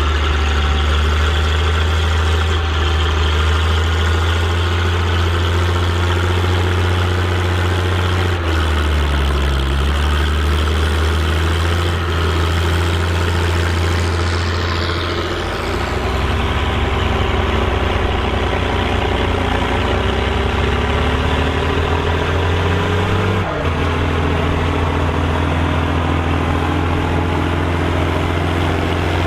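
Volvo BM tractor diesel engine running steadily, working a plough. The engine note changes abruptly twice, and a tone slowly rises in the middle stretch.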